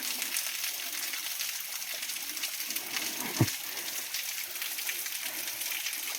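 Small forest waterfall running thin in the dry season: a steady hiss of falling, splashing water. A single dull thump about three and a half seconds in.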